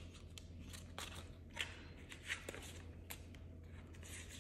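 Australian polymer banknotes handled and flicked through by hand: a few faint, short crinkles and snaps spread across the moment, over a low steady hum.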